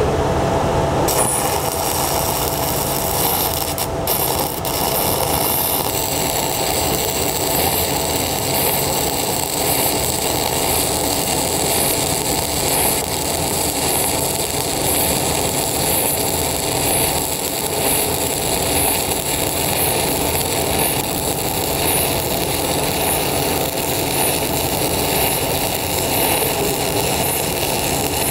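Stick (shielded metal arc) welding with a 6010 electrode on DC positive. The arc is struck about a second in and then burns steadily with a dense, even crackle as a vertical-up pass is run up a steel plate.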